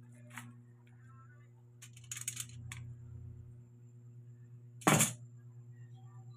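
Egg noodles poured from a metal colander into a wok of broth: a short rustling splash about two seconds in, then one loud sharp knock about five seconds in, over a steady low hum.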